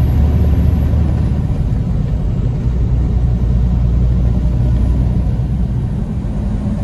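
Semi-truck's diesel engine and road noise heard inside the cab while cruising on the highway: a steady low drone.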